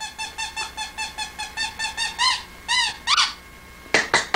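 A fast run of short, high squeaks, about seven a second, made to call a puppy, giving way to three louder, slower squeaks. Hand claps start near the end.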